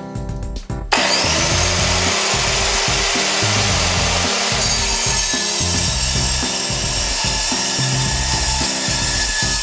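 Evolution EVO230 steel-cutting circular saw starting up about a second in, then cutting through a 7 mm steel C-channel with a loud, steady cutting noise. Background music with a beat runs underneath throughout.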